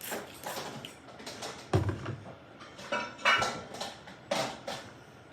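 A utensil stirring slime mixture of clear glue and activator in a bowl, scraping and clinking against the bowl in irregular strokes, with a few sharper, louder knocks.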